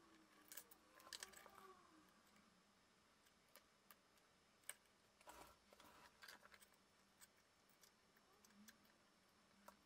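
Near silence with faint, scattered clicks and taps of small plastic gimbal parts being handled and fitted together during reassembly, a few in quick clusters.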